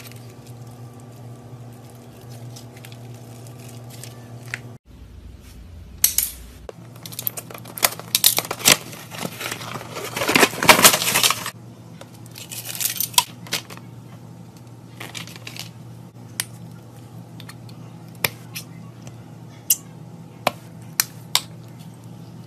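Plastic packaging crinkling and rustling as it is handled, loudest for several seconds past the middle, with a shorter burst after it. A few sharp clicks and taps follow.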